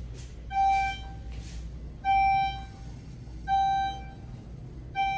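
Schindler 6400NA traction elevator's in-car floor-passing chime: a single pitched electronic tone that sounds four times, about a second and a half apart, as the car travels between floors. A low steady hum runs underneath.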